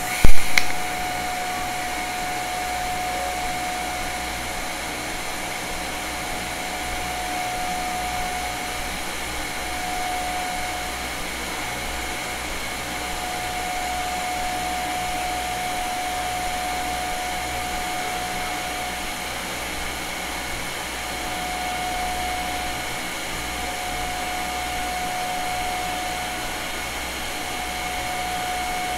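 TIG welding arc on stainless steel at about 80 amps, running as a steady hiss with a faint high whine. It opens with a loud sharp crack as the arc strikes, and the level rises and falls gently as the weave goes on.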